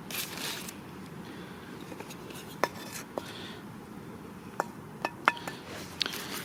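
Metal utensils clinking against a frying pan, about six sharp separate clinks, while fried meat is served out of it.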